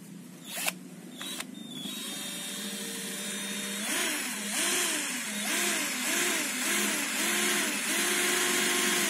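Cordless drill boring a hole through a car spoiler. Two clicks come about a second in, then the motor whine starts. From about four seconds in, its pitch dips and recovers over and over as the bit bites, holding steadier near the end.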